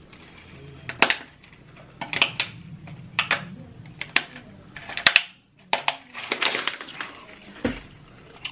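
Close-miked mouth sounds of eating shrimp Alfredo pasta: wet chewing and lip smacks, about one or two sharp smacks a second, with a short pause near the middle.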